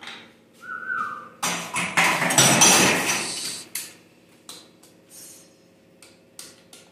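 Hand tools and metal engine parts clinking and knocking during engine disassembly, over a steady low hum. A loud rushing noise lasts about two seconds, starting about a second and a half in.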